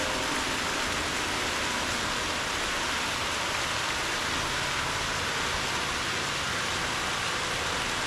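Small waterfall splashing steadily into a garden pond, a constant rush of falling water.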